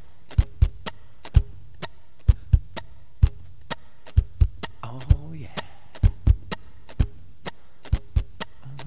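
Sharp knocks, each with a low thump, at an uneven rate of about two to three a second over a steady low hum. About five seconds in there is a brief low voice-like hum that rises and falls.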